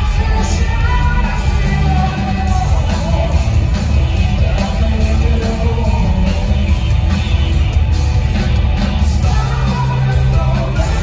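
Hard rock band playing live, with electric guitar, drums and a singing voice, heard loud and unbroken from within the audience.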